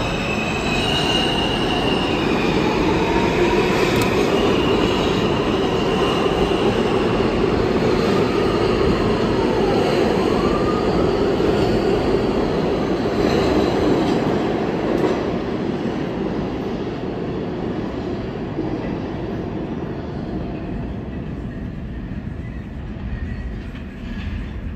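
R160 subway train pulling out and running past along the platform, its steel wheels rumbling, with high, wavering squeal tones and a few gliding whines. The sound dies away over the last ten seconds as the last car leaves the station.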